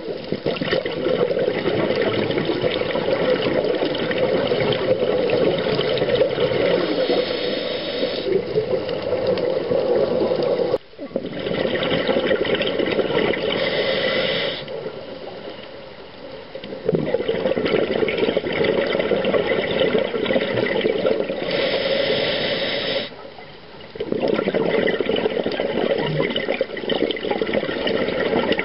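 Scuba diving sounds heard underwater: regulator breathing and the rush of exhaled bubbles in long stretches, broken by a few brief quieter gaps between breaths.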